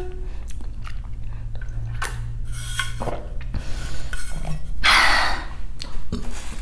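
Close-miked mouth sounds of an eater: chewing and swallowing with small wet clicks and smacks. A louder hissing rush comes about five seconds in.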